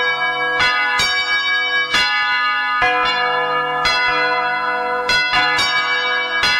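Church bells ringing a peal, with new strikes about twice a second and the tones of each ringing on and overlapping.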